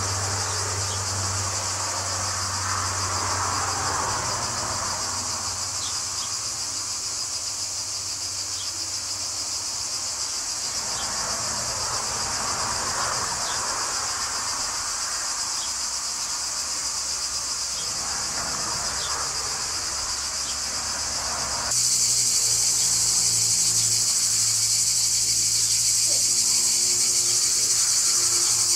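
Cicadas droning in a steady, high-pitched summer chorus. It turns louder about 22 seconds in.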